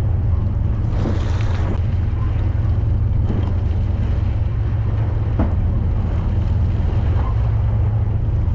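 A large fishing boat's engine running with a steady low drone, with wind and water noise over it.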